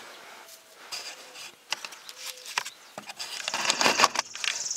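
Handling noise under the truck: scattered clicks and small knocks as a handheld work light is brought up and the camera is moved, turning into louder, denser rustling and scraping about three seconds in.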